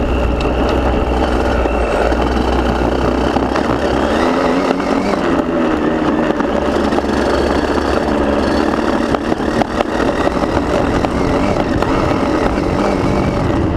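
KTM motocross bike engine running under way, picked up by the bike's onboard camera. The engine note rises and falls as the throttle opens and closes.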